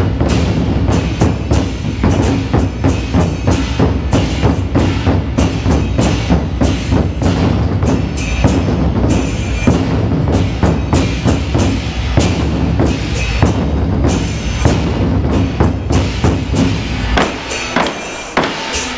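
An ensemble of large Chinese barrel drums beaten with sticks in a rapid, steady rhythm, heavy booming strikes mixed with sharp clicks of sticks on wood. About two seconds before the end the deep booming stops, leaving lighter, sharper strikes.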